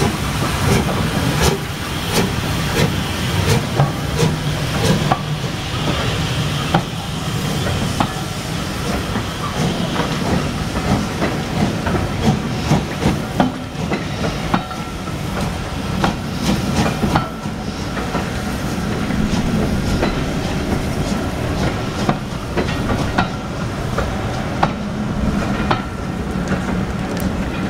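LMS Stanier Black Five 4-6-0 steam locomotive No. 5428 pulling out with its cylinder drain cocks hissing, the hiss fading over the first several seconds. Then a rake of Pullman coaches rolls past, wheels clicking over the rail joints.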